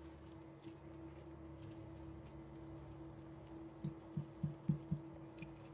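A spatula stirring and breaking up ground beef in a stainless steel pan, faint under a steady low hum. About four seconds in come a handful of soft, low knocks as the spatula pushes the meat against the pan.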